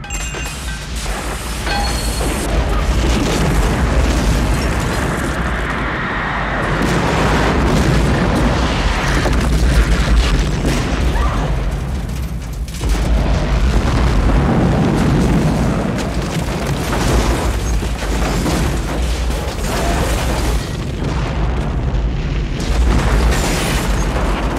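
Film sound effects of a huge explosion and fireball sweeping through a road tunnel: a continuous deep rumbling boom that swells and dips, surging again about halfway through, with film score underneath.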